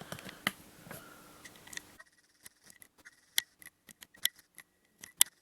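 Scattered small clicks and taps from the camcorder being handled to zoom in, over a faint steady hum.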